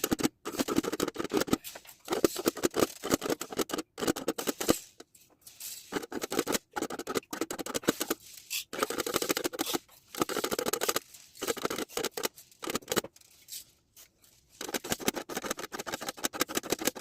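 Aluminium foil crinkling and scratching under a tracing tool as a drawing is traced on it. It comes in bursts of a second or more with short pauses between strokes.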